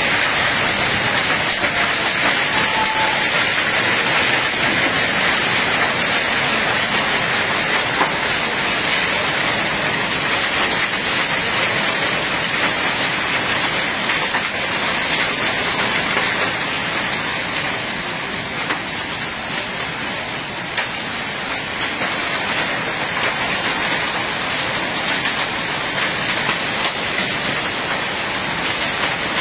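Heavy rain falling steadily, a dense even hiss of drops on hard surfaces and leaves, easing slightly past the middle.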